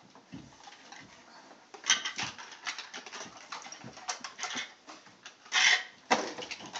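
Plastic toys and a plastic toy chest knocking and clattering as a toddler climbs into the chest, with irregular knocks and a couple of louder bumps near the end.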